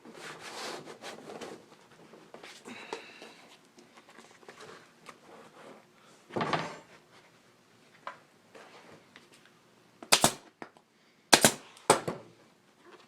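Rustling as a seat cover is pulled and smoothed over the foam, then three sharp staple-gun shots in quick succession near the end, fastening the cover to the seat pan.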